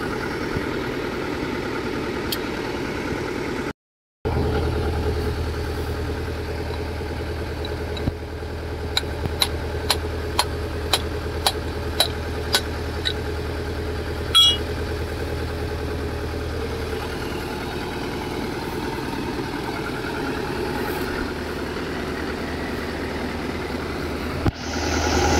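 Rice combine harvester's engine running steadily at idle, the sound cutting out for a moment about four seconds in. In the middle comes a run of about eight sharp clicks, roughly two a second, then a single louder knock.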